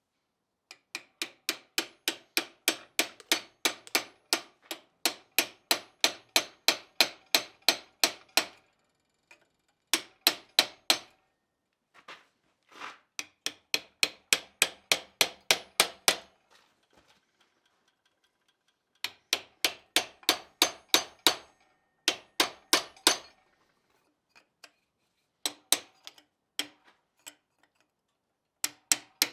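Blacksmith's hand hammer striking hot iron on an anvil while forging the sepal of an iron rose. The blows come in runs of about three a second, with short pauses between runs.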